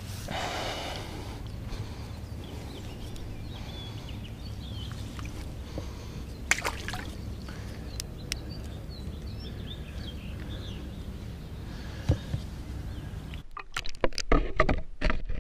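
A GoPro is lowered into pond water near the end: the sound turns suddenly muffled, with sloshing water and several knocks on the camera. Before that, a steady low outdoor rumble with faint chirping.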